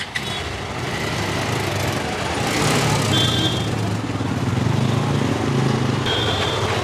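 Street noise dominated by a motor engine running steadily, with two short high-pitched tones, one about three seconds in and one near the end.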